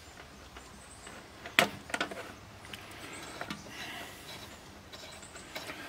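Quiet background with a few scattered knocks and clicks, the loudest about a second and a half in.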